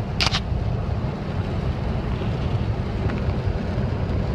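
Steady low rumble of a car's engine and road noise heard inside the cabin, with one short, sharp high-pitched sound just after the start.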